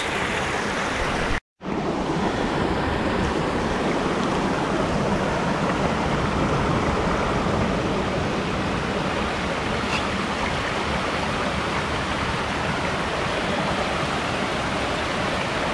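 Rocky creek rushing over and between boulders: a steady, even wash of water, broken by a brief dropout about a second and a half in.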